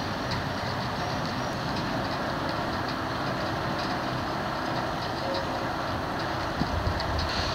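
Steady rushing noise with a low rumble underneath, and faint brief high-pitched squeaks scattered through it.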